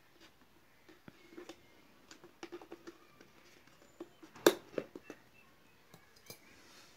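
Scissors scraping and clicking against the neck of a round money box. About halfway through there is one sharp, loud crack as the neck breaks off, followed by a few lighter clicks.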